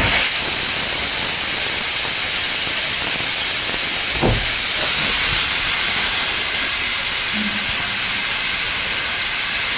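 Stovetop pressure cooker blowing off steam through its weighted whistle valve: a loud, steady, high hiss. This is one of the cooker's 'whistles', the sign that it has reached full pressure.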